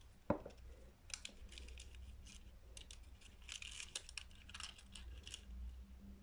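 Thin translucent paper being folded and pressed by hand, crackling and crinkling in a run of short crisp ticks. A single knock just after the start is the loudest sound.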